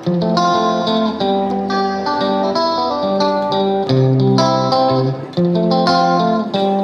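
Background music: plucked guitar playing a melodic tune.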